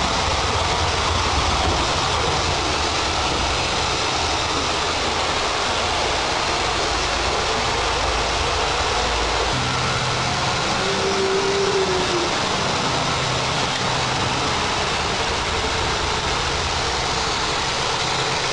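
Roomba robot vacuum cleaner running: a steady whirring hiss from its motor and brushes. Its low hum shifts to a different pitch about halfway through.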